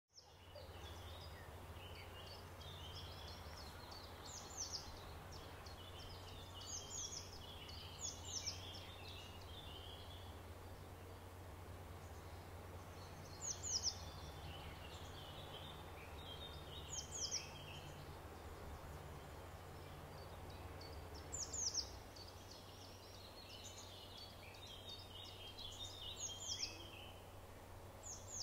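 A songbird singing short phrases about every three to five seconds, each opening with a few high sweeping notes and running into a lower jumble of notes, over a steady low rumble.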